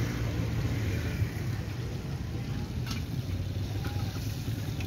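Steady low rumble and hiss at a deep-frying station: chicken leg pieces frying in a wide karahi of hot oil. A single sharp click comes about three seconds in.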